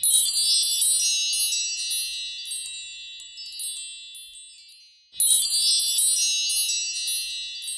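High wind-chime sound effect: a dense cascade of tinkling, ringing tones that starts suddenly, fades away over about five seconds, and starts again about five seconds in.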